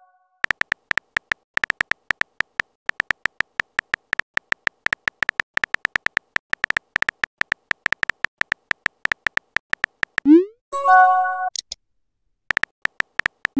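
Rapid soft typing clicks, one per letter, from a texting app's keyboard sound effect, running for about ten seconds. Then a quick rising swoosh and a short bright chime as the message is sent, and a few more typing clicks near the end.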